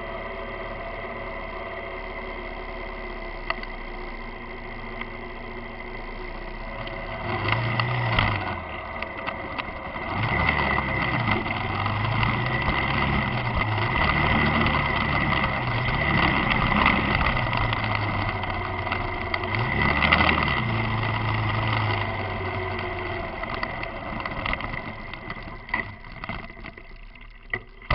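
Motorcycle engine running on the move. Its note rises and falls several times with the throttle through the middle, then it quietens near the end.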